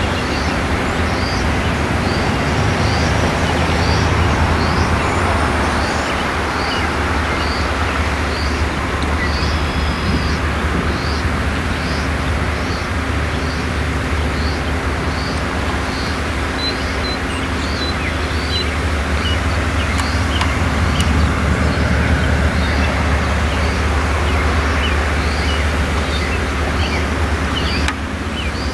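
Freight train rolling past: a loud, steady rumble and rattle of rail cars on the track.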